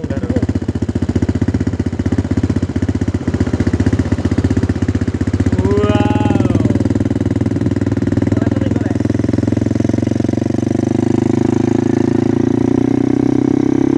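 ATV (quad bike) engine running under throttle as it drives across beach sand, with a steady, rapid pulsing note. The engine note rises a little in the last few seconds as it speeds up.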